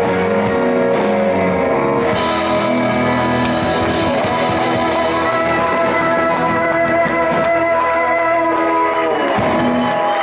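Live rock band with electric and acoustic guitars playing sustained chords. The low notes drop out about nine seconds in.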